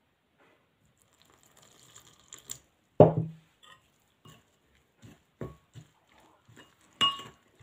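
Water poured from a glass into a ceramic bowl of jowar flour, then a sharp knock about three seconds in. A steel spoon follows, scraping and clinking against the bowl as the flour is stirred into dough, with a ringing clink near the end.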